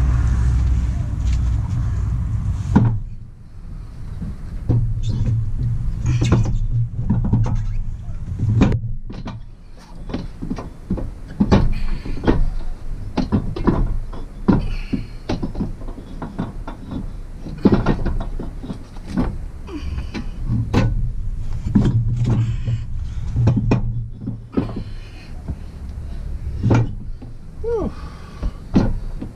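Rear wheel being hung on the hub and its lug nuts threaded on by hand: a long run of irregular metallic clicks and knocks of nuts, studs and wheel. A steady low hum in the first three seconds cuts off suddenly.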